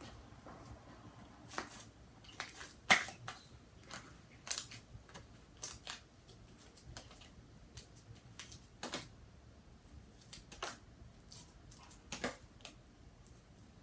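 Irregular small clicks and knocks, scattered a second or two apart, the sharpest about three seconds in.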